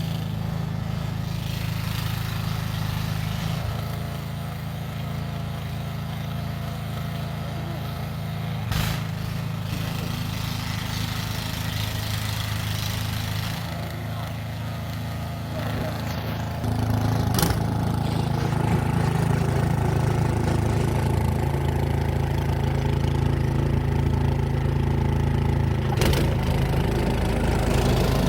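Gas-powered snow blower engine running steadily, getting louder about two-thirds of the way through, with three brief knocks spread across the stretch.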